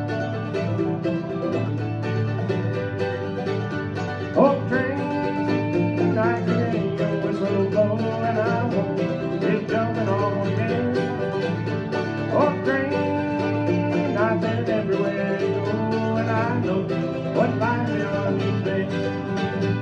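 Bluegrass band playing, with banjo and guitar picking and a voice singing.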